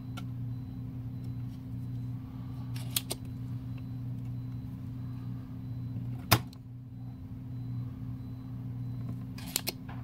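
Spring-loaded solder sucker (desoldering pump) firing once with a sharp snap about six seconds in, as it pulls molten solder from a keyboard switch joint. Fainter clicks come about three seconds in and twice near the end, over a steady low hum.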